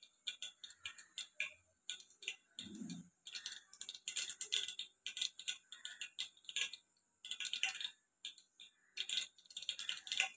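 Mustard seeds spluttering in hot oil in a pressure cooker pot: a run of irregular, crackling pops with short lulls. This is the tempering stage, and the popping is still slow because the oil is only just coming up to heat.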